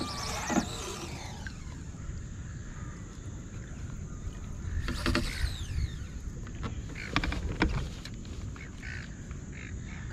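Wind rumbling on the microphone over the water, with a few hard knocks of paddle and gear against the plastic kayak at about half a second, five seconds and seven seconds in.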